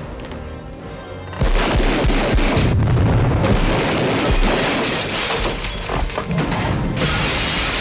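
A film explosion going off about a second and a half in, a sudden blast followed by a long, loud rumble, mixed under an orchestral score.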